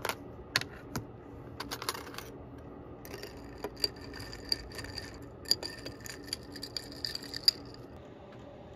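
A straw case clicking open, then a glass straw clinking against the ice and the glass of an iced matcha latte as it is stirred: a quick run of ringing clinks that stops near the end.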